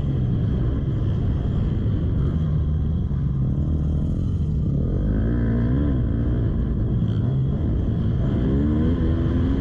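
Motocross bike engine revving up and down with the throttle, pitch rising and falling several times, over a steady low rumble.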